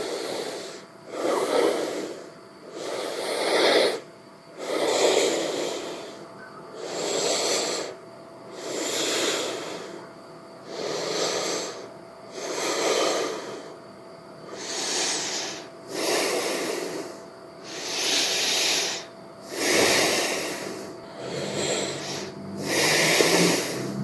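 A man breathing heavily from physical exertion: deep, regular breaths in and out through the open mouth, about one every two seconds.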